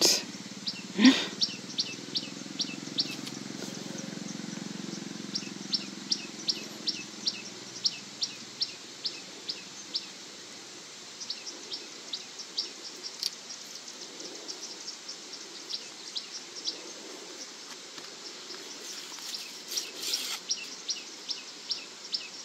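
A bird chirping over and over in runs of short, sharp calls, about two or three a second, over outdoor background noise. About a second in there is one loud rising sweep, and a low hum underneath fades out after about eight seconds.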